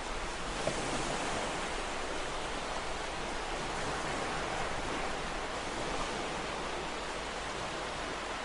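Ocean surf washing in as a steady hiss, swelling slightly about a second in and then easing back to an even wash.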